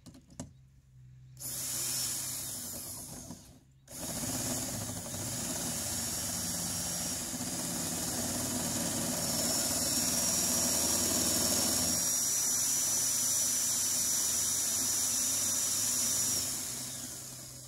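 An old corded Craftsman electric drill runs a worm gear winch, winding the boat lift's cable. It starts about a second and a half in, stops briefly, then runs steadily with a thin high whine before slowing to a stop near the end.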